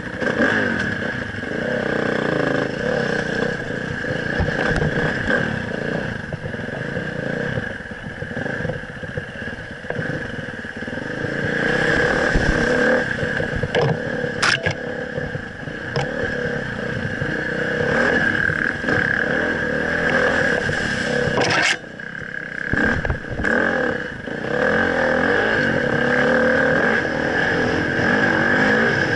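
Dirt bike engine running under a rider's throttle, revving up and down as the bike works along a rough trail, with clatter from the ride. Two sharp scrapes stand out, one about halfway through and another about two-thirds in.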